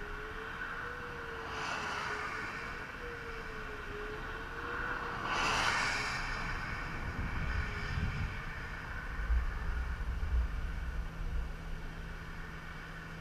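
Highway traffic passing close by: tyre and engine noise swells and fades twice, most strongly about five and a half seconds in, followed by low rumbling wind gusts buffeting the microphone.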